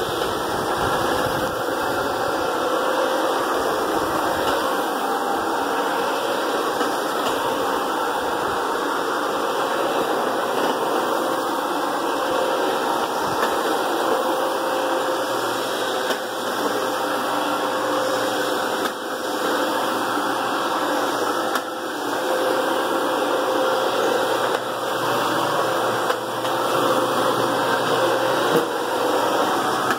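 Brush Pro 10-inch counter-rotating brush carpet machine running steadily: its electric motor hums with a faint steady tone while the brushes scrub through the carpet pile as it is pushed across the floor.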